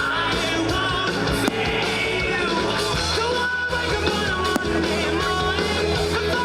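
Rock music with a singing voice over a steady bass line, at an even loudness, with a couple of sharp hits.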